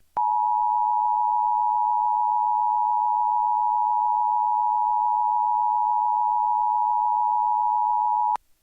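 Emergency Alert System attention signal: two steady tones, 853 and 960 Hz, sounding together for about eight seconds. It starts and stops abruptly and warns that an emergency message follows.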